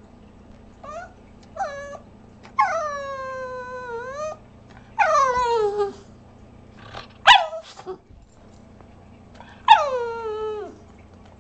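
A Bugg (Boston terrier–pug cross) dog vocalizing: two short yips, then long drawn-out calls that slide down in pitch, three in all, with a sharp yip between the second and third.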